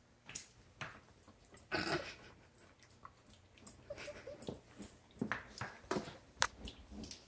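A dog sniffing and nosing at a plastic step stool on a wooden floor, with scattered clicks and knocks and a louder rustle about two seconds in. A short high whimper about four seconds in.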